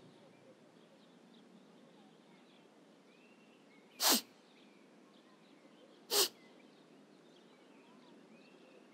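Two short sniffling sobs from a sad cartoon onion, about two seconds apart, each dropping in pitch, over faint background ambience with a few soft chirps.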